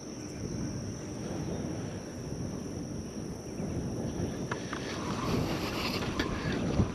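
Creek-bank ambience: a steady high insect trill over a low rumble, with a few light clicks in the last couple of seconds.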